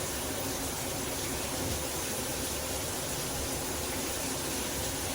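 Shower head running, water spraying in a steady hiss.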